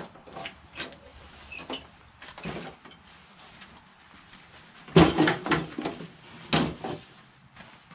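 Knocks and clanks from a stripped Craftsman push lawnmower being handled on a concrete garage floor as it is tipped up off its side and stood on its wheels. Small knocks come first, then the loudest clunks about five seconds in and again a little later, as it is set down.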